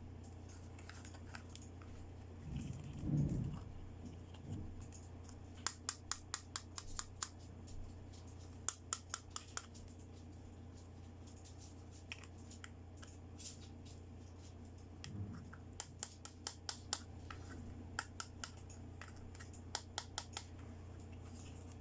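Small plastic toy accessories clicking and tapping as they are handled and unpacked, in several quick clusters of sharp clicks, with a duller bump about three seconds in. A low steady hum sits underneath.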